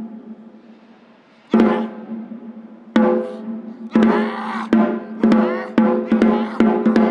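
Gojinjo daiko drumming on a taiko drum: heavy single strokes about a second and a half apart, each ringing on, then the strokes quicken into a fast run from about four seconds in.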